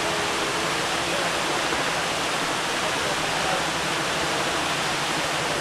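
Buckingham Fountain's water jets spraying and falling back into the basin: a steady rushing splash.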